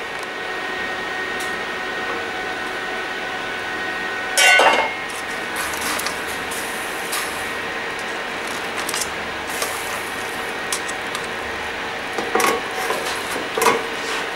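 Cookware clattering: one loud metal clatter about four and a half seconds in and two lighter clinks near the end, over a steady kitchen hum.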